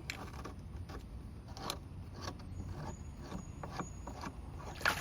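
Scattered light clicks and knocks, about seven spread irregularly, as the drain plug at the bottom of a DE pool filter tank is handled and unscrewed.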